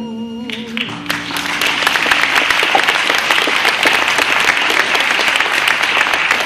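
The last held note of a song, with a wavering vibrato, ends about a second in as the audience bursts into applause. The clapping grows within the next second and keeps going loud and steady.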